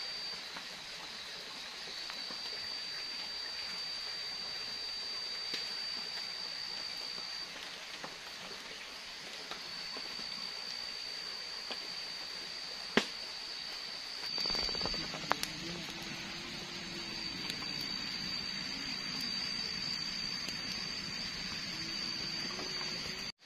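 Rainy night forest ambience: a steady high-pitched drone over a soft hiss of drizzle. About fourteen seconds in, the sound changes to a wood campfire crackling, with a low wavering hum underneath.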